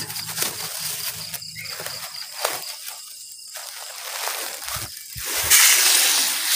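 Rice being poured into a large metal pot of water that is just starting to boil: a strong pouring hiss from about five and a half seconds in. Before it, crickets chirp faintly and there are a few light knocks.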